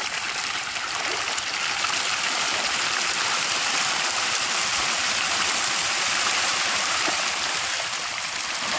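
A dense school of fish churning and splashing at the water's surface, a steady, continuous splashing hiss.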